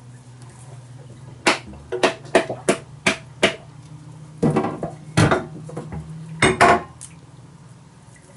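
A metal tool knocking against a coconut over a steel sink to crack it open: a quick run of sharp knocks, then a few louder, rattling knocks in the second half.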